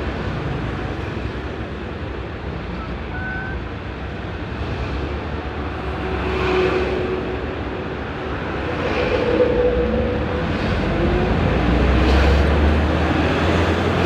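A vehicle on the move: steady road and wind noise over a low engine rumble, which grows louder near the end.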